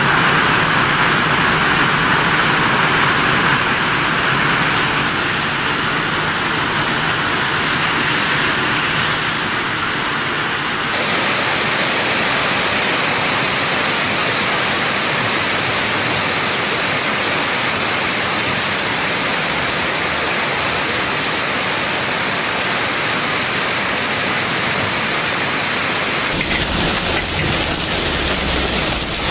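Heavy hail pelting down on pavement, a dense steady hiss of countless small impacts. Its tone changes abruptly twice, about eleven seconds in and again near the end.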